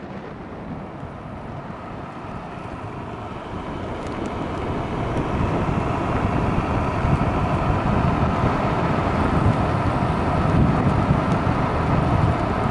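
Wind buffeting the microphone and tyre noise from an electric scooter riding on an asphalt road. The rush grows louder over the first several seconds as the scooter picks up speed, then holds steady.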